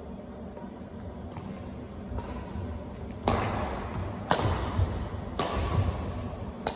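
Badminton rackets striking a shuttlecock in a singles rally: sharp cracks about once a second, each ringing off the hall, the loudest about three seconds in. Low thuds of footwork on the court between the strokes.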